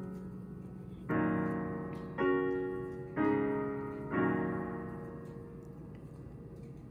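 Background piano music: four chords struck about a second apart, each left to ring and fade, the last dying away near the end.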